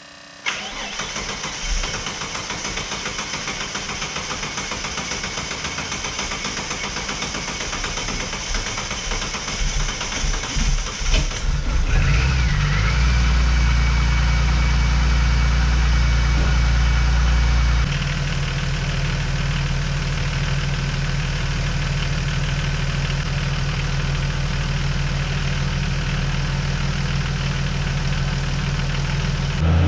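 Ford XR6 Turbo's 4.0-litre turbocharged inline-six running steadily, with a brief whine and a much deeper, heavier note from about twelve seconds in that eases slightly about six seconds later. It is being run to warm the automatic transmission and check the new cooler lines for leaks after an ATF top-up.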